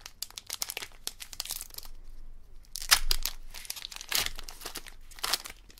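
A foil Pokémon booster pack wrapper being torn open and crinkled in the hands: a run of crackles and crinkles, with louder rips about three seconds in and again near the end.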